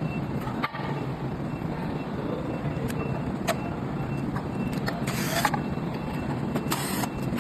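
Hands handling the plastic cover and parts of an electric scooter's controller compartment: scattered light clicks and two short scrapes in the second half, over a steady background rumble.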